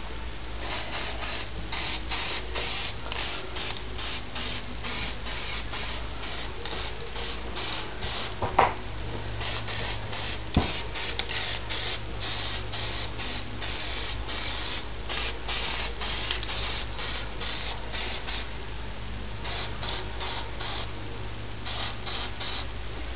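Aerosol spray can spraying in short bursts, about two a second, laying a first coat onto plastic truck interior trim, with a couple of short pauses near the end. A single sharp click about eight and a half seconds in.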